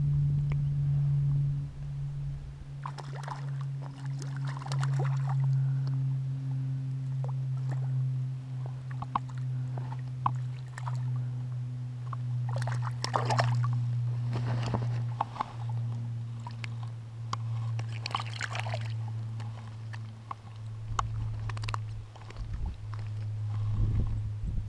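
Water splashing and sloshing in several short bursts as a hooked trout is played and landed beside a float tube. A steady low hum runs underneath.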